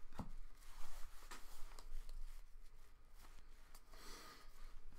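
Trading cards being handled and flipped through: soft rustling and light taps of card stock, with a brief louder rustle about four seconds in.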